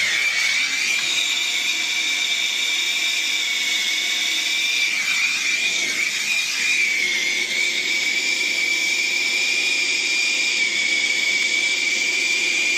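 Turbo torch burning steadily, a loud hiss with a steady high whistle, as copper pipe joints are soldered onto a new Honeywell zone valve.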